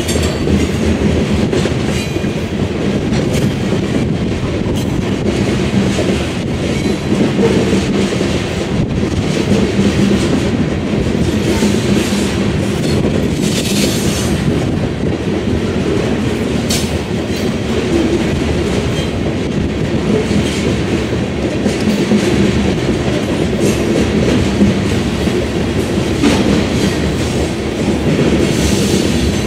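Covered hopper cars of a freight grain train rolling past close by, steel wheels clicking steadily over the rail joints, with a brief high screech about halfway through and again near the end.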